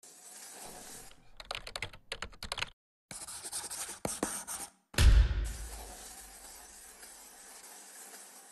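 Bursts of quick clicks like typing, then a scratchy hiss, each cut off abruptly, and then a single deep boom about five seconds in that fades into a low rumble.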